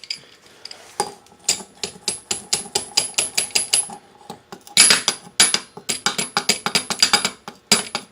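Metal cotter pin being tapped with a hammer through the hole in an ATV axle and its castle nut: a quick run of sharp, ringing metal taps, about four a second, that stops briefly about four seconds in and then starts again.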